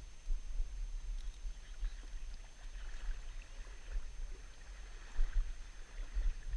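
River water lapping and moving, under an uneven low rumble that swells and dips, with a faint steady high whine.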